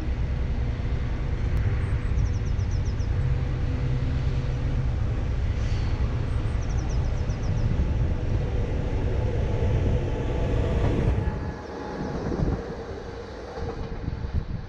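Electric multiple unit approaching along an overhead-wired line and running past, with a steady low rumble that drops away about eleven seconds in. Faint high bird chirps come in short groups over it.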